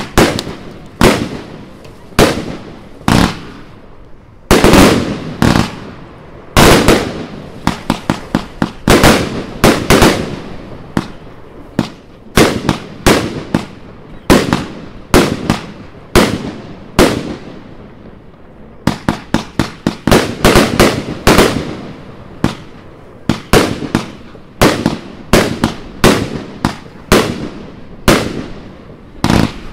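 Heron Fireworks Professional Powerbox 1, a 144-shot, 25 mm compound firework cake, firing without a pause. Sharp shots and aerial bursts come one after another, some singly and some in quick runs of several.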